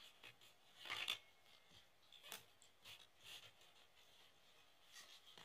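Faint scrapes and brushes of glossy baseball cards sliding against each other in a hand-held stack, a few short strokes spaced about a second apart, the clearest about a second in.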